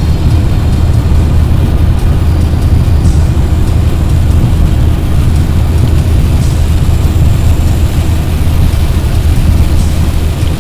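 Car driving on a wet road in the rain, a steady loud low rumble of engine and tyres with a hiss over it. A faint short high sound comes about every three seconds.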